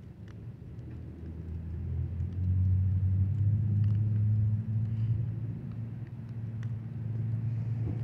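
Low rumble of a motor vehicle engine, a steady-pitched hum that swells about two seconds in, is loudest in the middle, then eases off a little.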